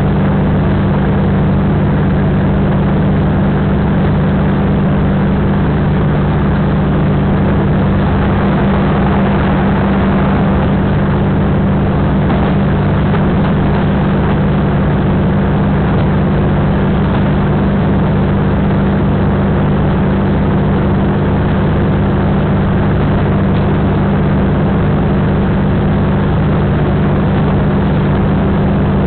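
Taiwan Railway DR2700 diesel railcar running along the line at a steady speed: a loud, even drone of the diesel engine with a steady low hum, mixed with the rumble of the moving train.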